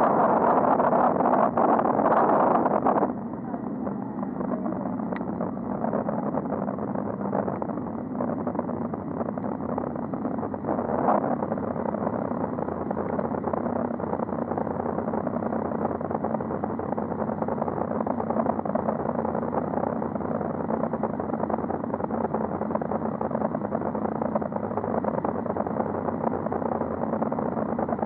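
Road traffic heard from a cyclist's helmet camera while riding: a steady rush of noise, louder for the first three seconds.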